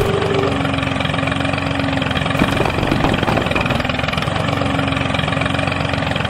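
Tractor engine idling steadily, with a fine even chug and a faint steady hum.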